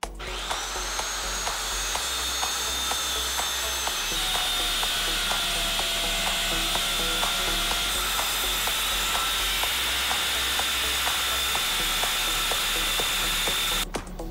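Corded 7¼-inch circular saw running and cutting through a sheet of plywood, a steady motor whine with cutting noise that stops abruptly near the end.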